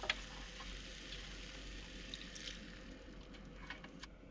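Faint steady hiss with a few light clicks and taps as vegetables are laid into an earthenware tagine and its clay lid is set on, near the end.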